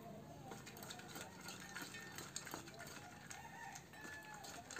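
Quiet eating by hand: fingers mixing rice on steel plates, with scattered soft clicks and ticks. Short pitched calls sound faintly in the background.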